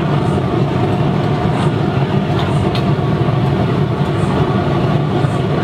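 Waste-vegetable-oil burner with a forced-air blower running steadily, its flame firing into a brick-lined steel drum furnace, with a few faint crackles.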